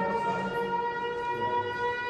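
Town fire siren wailing at a steady held pitch. It is sounded to call out the fire department in place of pagers or phones.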